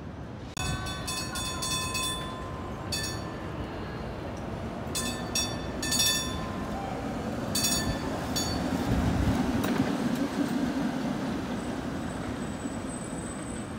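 PCC streetcar's gong rung in several quick bursts of strikes as it comes along, then the car rumbling past on the rails, loudest about nine to eleven seconds in.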